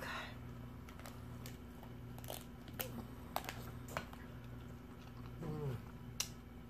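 Cooked lobster shell being pulled apart by hand and picked at with a fork: a string of sharp cracks and clicks, about one a second.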